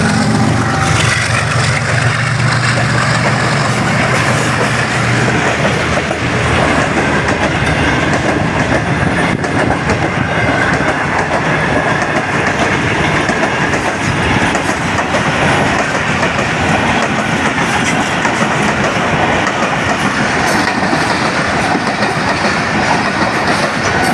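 Passenger train running through at speed: a steady rumble of wheels on rail with clickety-clack over the rail joints. A low drone, the passing GE U40 diesel-electric locomotive, stops about five seconds in, leaving the coaches rolling by.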